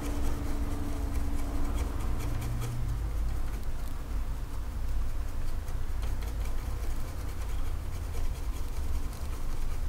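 A stiff brush scrubbing across a printed circuit board, a light scratchy brushing over a steady low hum.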